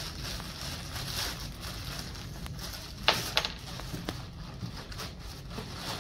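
Thin plastic bag crinkling and rustling as it is worked off a block of stiff clay, with a couple of sharp crackles about three seconds in.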